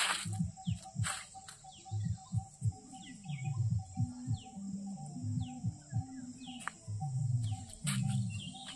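Outdoor ambience of birds giving short, falling chirps over a steady high insect drone. Under it, and loudest, run low pitched notes in short rhythmic steps.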